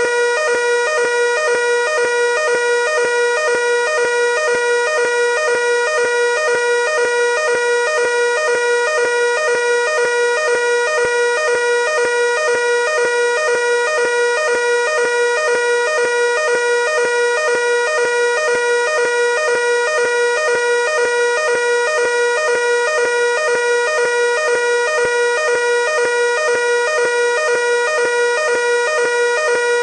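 Fire alarm sounding: one loud, steady, high electronic tone that pulses rapidly and does not change in pitch.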